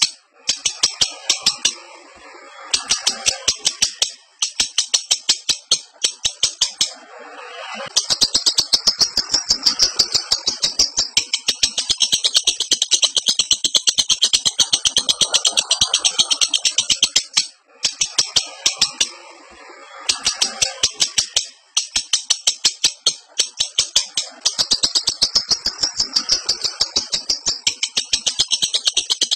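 Lovebird in breeding condition giving its long, rapid, high-pitched chattering call (ngekek). The call comes in runs of a few seconds up to nearly ten, with short breaks between them.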